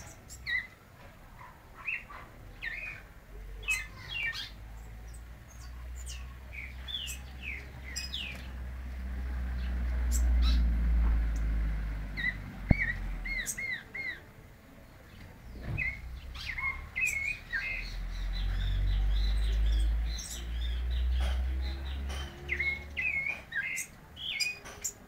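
Caged zorzal blanco thrush singing a little, in short phrases of quick chirping notes that rise and fall. A low rumble swells up and fades twice under the song, and there is a single sharp click about halfway through.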